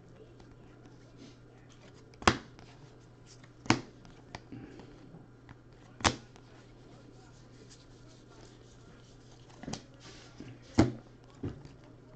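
Baseball cards being handled and sorted: sharp, spaced clicks and softer ticks as cards are flicked and knocked against the stack, about five loud ones, over a faint steady hum.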